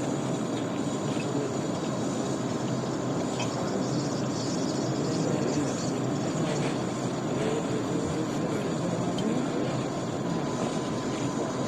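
Laboratory room ambience: a steady hum under indistinct murmuring voices, with a few faint clinks of glass bottles.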